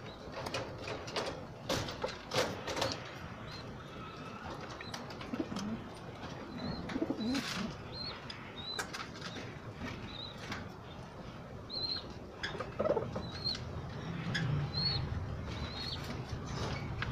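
Domestic pigeons feeding on grain: sharp clicks of pecking and flapping wings, low cooing, and a short high chirp repeating about once a second in the second half.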